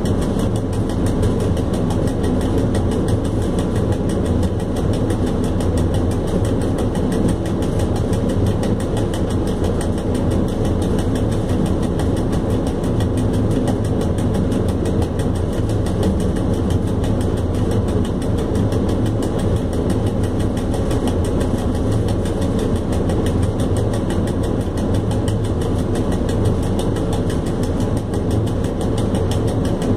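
Steady running noise inside the cab of an electric locomotive under way: a low rumble of motors and wheels on the rails, with no break or change.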